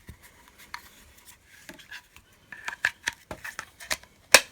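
Hard plastic vacuum cleaner parts being handled: a string of light clicks and clacks, with one sharp knock near the end.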